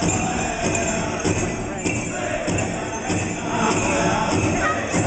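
Powwow drum group beating a big drum in a steady beat while singing a chicken dance song, with the jingling of bells on a dancer's regalia.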